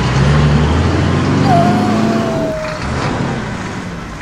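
Heavy truck engine sound effect, its pitch climbing steadily as the vehicle speeds up, over a dense hissing rumble.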